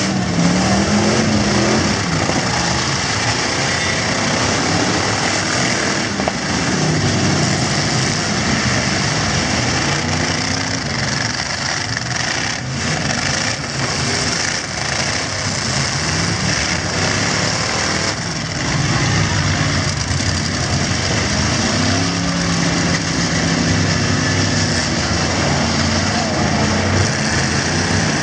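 Several V8 demolition-derby truck engines revving and idling, their pitch rising and falling again and again.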